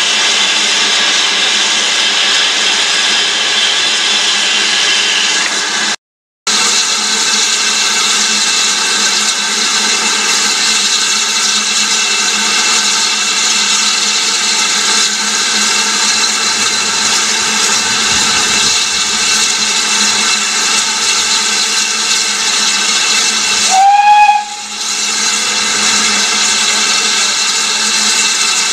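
BR Standard Class 9F 2-10-0 steam locomotive standing with steam hissing loudly and steadily, a dense hiss with steady tones through it. The sound cuts out briefly about six seconds in, and a few seconds before the end there is a short louder burst with a falling tone.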